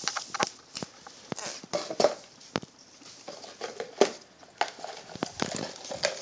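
Irregular sharp clicks and taps of a crab's legs scrabbling against a plastic tub and on a tiled floor, with the tub knocking on the tiles. The loudest knocks come about two and four seconds in.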